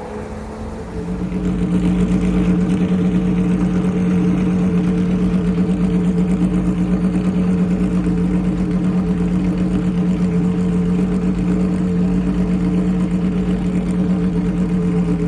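Car engine, most likely the Pagani Zonda R's V12, running at steady revs. It comes up about a second in and then holds one constant, even note.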